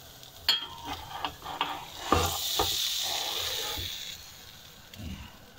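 Metal tongs clicking and knocking against a hot non-stick frying pan while a cheese-stuffed flatbread toast is handled. A burst of sizzling from the pan starts about two seconds in and fades out by about four seconds.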